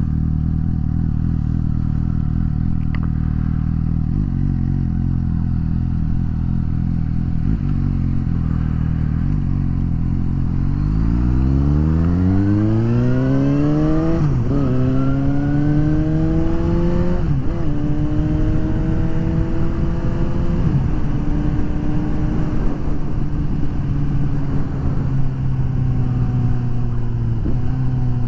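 Suzuki GSX-S750 inline-four engine running steadily at low revs, then pulling away about ten seconds in. It accelerates with rising pitch through three upshifts, each a short dip in pitch. It then settles to a steady cruise with wind noise.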